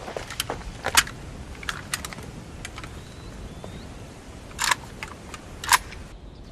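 Guns being handled and checked, their metal actions clicking. There are several sharp clicks early on, then two louder, longer clacks about a second apart near the end.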